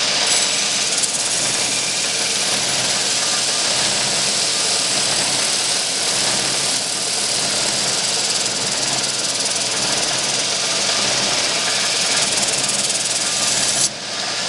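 A knife blade being ground on a treadmill-motor-driven 2x72 belt grinder: steel hissing steadily against the running abrasive belt at the cast aluminum contact wheel, over the hum of the motor and belt. The grinding hiss stops abruptly near the end while the machine keeps running.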